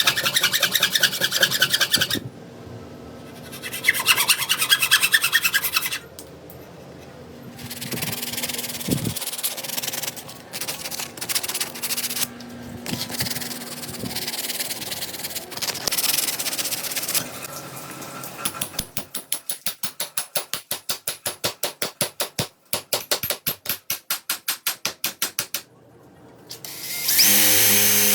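Hand work on wood: rubbing and rasping strokes, some in quick scratchy runs, then a run of fast, regular back-and-forth strokes, about four or five a second, late on. A steady power-tool whine starts near the end.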